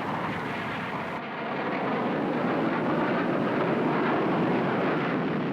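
Jet aircraft engine noise, a steady rush that grows louder partway through and begins to fade near the end.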